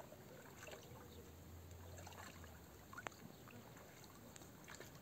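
Faint water sounds of oars dipping and dripping as an inflatable rubber boat is rowed, close to silence, with one small click about three seconds in.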